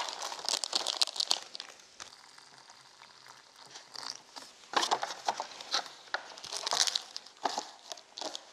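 Plastic seasoning sachets and the paper lids of instant cup noodles crinkling and tearing as they are opened, in short, irregular rustles.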